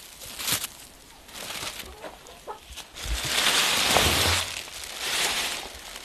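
Plastic bags rustling and crinkling as they are untied and pulled off the mouth of an earthenware pickle jar. The rustling is loudest for about a second and a half from about three seconds in, with a shorter burst about five seconds in.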